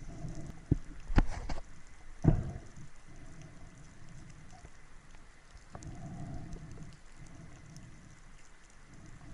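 Water splashing and sloshing, with several sharp knocks in the first two and a half seconds, the loudest a little over two seconds in, then a steady low rush of water.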